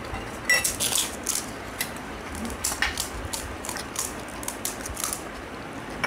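Crisp golgappa (pani puri) shells crackling as fingers poke them open and they are crunched, a scatter of short sharp cracks and clicks, busiest about half a second to a second and a half in.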